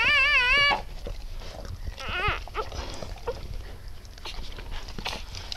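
A newborn Siberian Husky puppy crying in a loud, wavering squeal at the start, then again more briefly about two seconds in. Small wet clicks and shuffling throughout, as the mother husky licks and noses the puppy.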